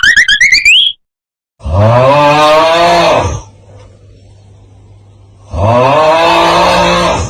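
Cow mooing sound effect: two long moos about two seconds apart, each rising at the start and then held. A low steady hum sits under and between them. A rising, pulsing effect ends about a second in.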